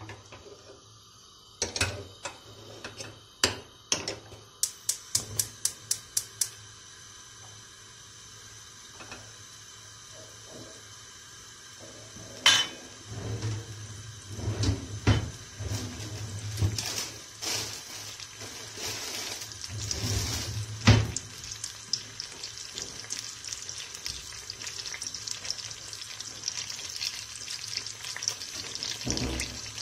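Steel pots and a frying pan clank on a gas stove's grates, then a quick run of about eight even clicks follows. Butter then sizzles in the non-stick frying pan as it melts and foams, with a steady hiss that grows louder over the second half and is broken by occasional knocks of cookware.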